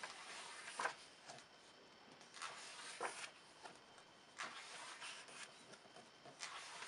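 Pages of a thick book being turned by hand one after another: several faint paper swishes and rustles a second or two apart.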